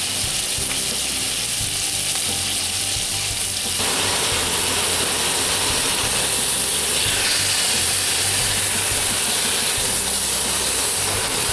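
Stuffed pork loin searing in a preheated Dutch oven: a steady sizzle that gets louder about four seconds in.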